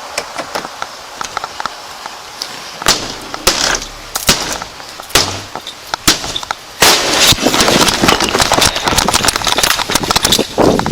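Light ticking of a tool working at a door lock, then from about three seconds in several loud sharp bangs and, from about seven seconds, a dense run of crackling pops: a small explosive device set off inside a camper.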